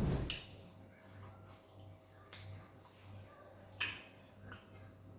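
Wet mouth and hand sounds of eating fufu with egusi soup: a few separate sharp smacks and squelches, the loudest with a low thump at the very start, then three more spread through.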